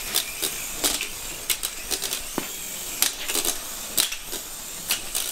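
Small electric coaxial toy helicopter with its rotor head locked rigid, rotors whirring while the blades clatter irregularly against the concrete floor as it tips over: with no stability mechanism it cannot take off.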